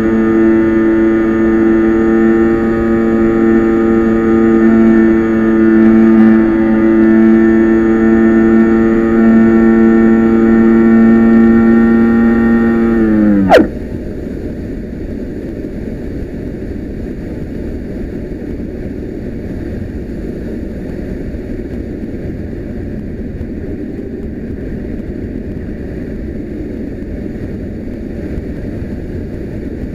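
Electric motor and propeller of a Talon RC plane, heard from the onboard camera, running with a steady whine, then cut about 13 seconds in: the pitch drops sharply and the motor stops. What remains is steady wind rushing past the airframe as the plane glides with the throttle off.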